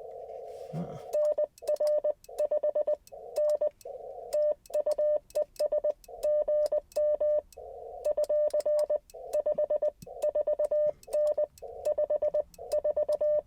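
Morse code as a single steady tone from an Icom IC-705, keyed in quick dits and dahs: the transceiver's CW sidetone as a call is sent on the paddle. Between some words the receiver's narrow-filtered band hiss briefly comes back.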